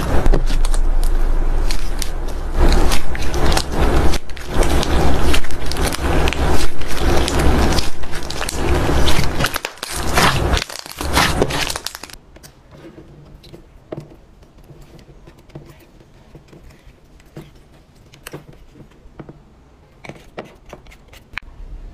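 Thick white fluffy slime squeezed and kneaded by hand, squelching and crackling loudly with many small pops. About halfway through it gives way to much quieter, sparse crackles as a blue jelly slime is pressed.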